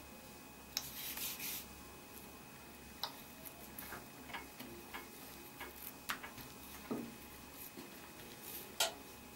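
Wooden rolling pin clicking and knocking against a marble rolling board as a ball of dough is rolled out flat, with a brief rub about a second in. The knocks come irregularly, a few seconds apart, and the sharpest one comes near the end.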